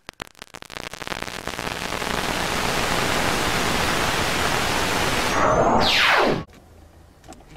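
Television static hiss: scattered crackles swell into a steady, loud hiss. About five and a half seconds in, a fast falling sweep plays over it, and then the hiss cuts off suddenly.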